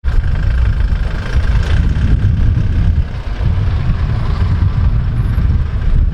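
A vehicle's engine running with a steady low rumble that starts suddenly.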